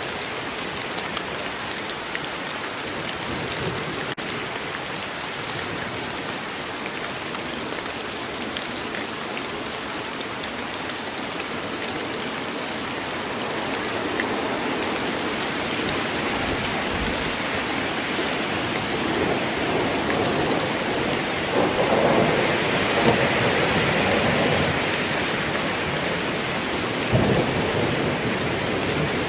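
Steady rain falling on a forest, a dense even hiss of drops, growing louder in the second half, with thunder rumbling through it and a low thud near the end.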